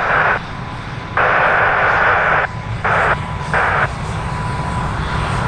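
Boeing 747-400 jet engines running at taxi power, a steady low rumble. Over it, an airband radio cuts in and out four times in short bursts of hiss with no clear words, each switching on and off sharply.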